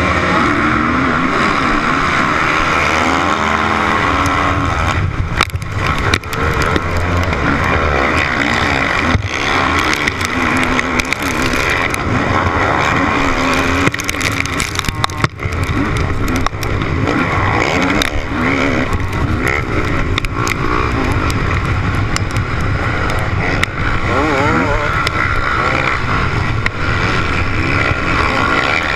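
Motocross bike engine under hard throttle from a race start, revving up and down through the gears as the bike runs down the dirt track, with the engines of other bikes in the pack mixed in.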